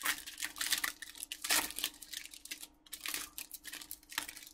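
Foil wrapper of a Pokémon booster pack crinkling and tearing as it is opened by hand, in a run of short scratchy rustles, loudest about a second and a half in.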